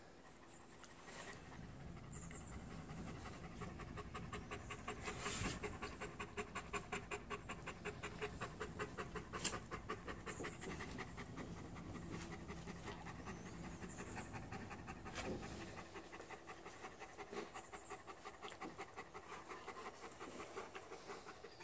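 Adult Bernese mountain dog panting steadily, at about three or four breaths a second, with a few sharp knocks from the dogs at play.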